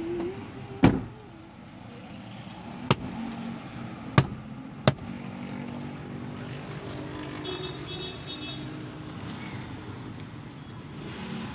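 Steady low hum of vehicle traffic heard from inside a car, broken by four sharp knocks: a loud one about a second in, then three lighter ones between about three and five seconds in.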